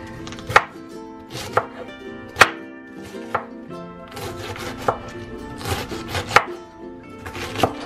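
Chef's knife chopping cabbage on a wooden cutting board: sharp knocks of the blade coming down through the leaves onto the board, about one a second, over background music.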